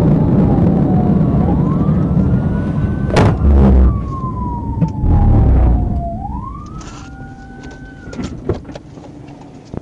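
Police car siren wailing, its pitch sliding slowly down and up in long sweeps, over heavy road and wind noise that dies away as the patrol car brakes from high speed to a stop. A sharp thump comes about three seconds in. The siren cuts off about eight seconds in, followed by a few sharp clicks.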